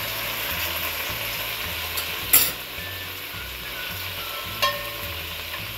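Marinated chicken sizzling in its masala juices in a pot on the stove, with a foil cup of hot charcoal set among the pieces for smoking. A sharp clink sounds about two and a half seconds in, and a smaller one a couple of seconds later.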